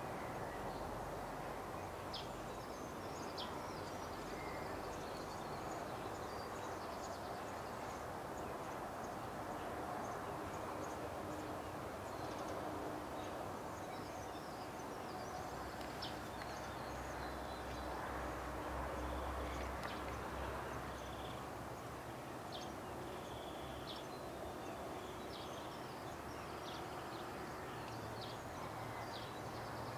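Steady outdoor background noise with faint, scattered high chirps of small birds.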